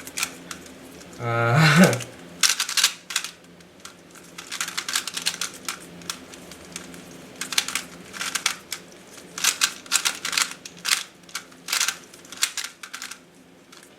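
GAN 356i Bluetooth 3x3 speedcube being turned fast during a solve: quick runs of clicking from the plastic layers, broken by short pauses between groups of turns.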